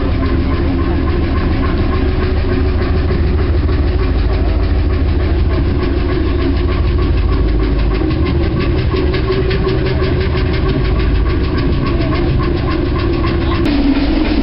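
Boat's marine engine running steadily with a fast, even beat, heard from on deck; the tone shifts near the end.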